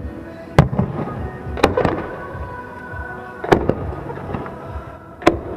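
Aerial fireworks shells bursting: four sharp bangs spaced one to two seconds apart, over music playing throughout.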